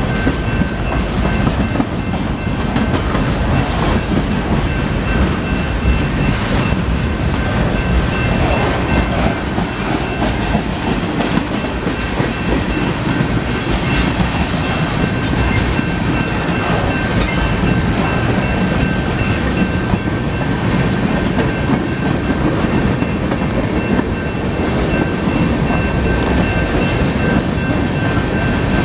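Union Pacific freight cars (boxcars and tank cars) rolling slowly past, a steady rumble of steel wheels with clacking over the rail joints. A thin steady high tone sounds over it.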